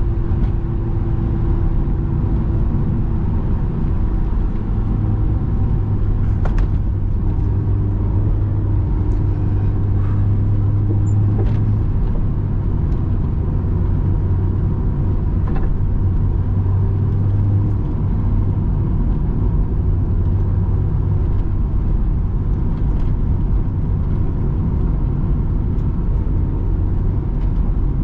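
Honda S2000 heard from inside the cabin with the soft top up while driving at a steady pace: the F20C four-cylinder engine's steady drone under road rumble, with a few light clicks.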